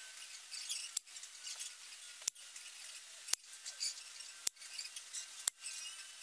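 Five sharp clicks about a second apart as air rifle pellets are fired into a card target.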